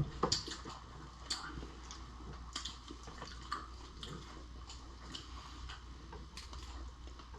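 Close-up eating sounds of someone chewing cooked lobster and shrimp: quiet chewing with scattered sharp clicks, loudest in the first half-second.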